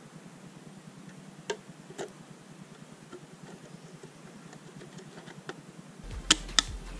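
Hard plastic clicks as the glass of an MMD retro side mirror is pressed into place by hand: two light ticks early, then two sharp snaps about a third of a second apart near the end as it seats, over a faint low hum.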